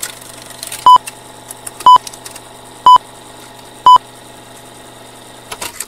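Old-film countdown leader sound effect: a steady film-projector whirr with four short, loud high beeps, one a second. It ends in a brief crackle and cuts off.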